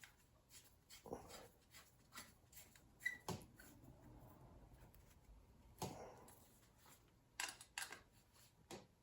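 Near silence with a few faint, scattered clicks and light knocks from handling tools and parts on a bicycle.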